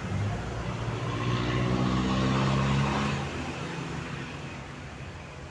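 A motor vehicle's engine passing: its hum grows to its loudest about two to three seconds in, then fades away.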